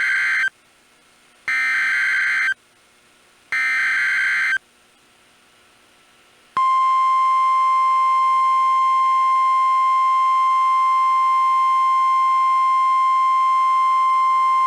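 NOAA Weather Radio emergency alert: the SAME header's digital data tones in three one-second bursts a second apart, the first just ending as the sound opens. About six and a half seconds in, a steady single-pitch 1050 Hz Warning Alarm Tone starts; it announces a warning broadcast, here a new tornado warning.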